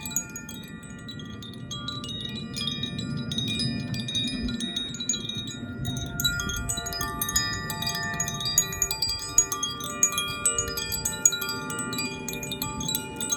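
A Zaphir chime being swung and tinkling continuously, its rods struck over and over so that many bell-like tones ring and overlap.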